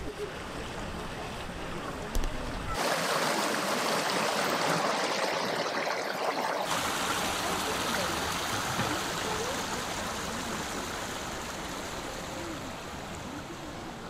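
Water running over the stones of a shallow stream: a steady rushing hiss that cuts in about three seconds in and stops abruptly near seven seconds. Around it, outdoor ambience with faint distant voices.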